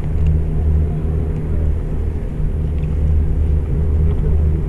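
Low, steady engine drone and rumble of the Royal Wing cruise ship running.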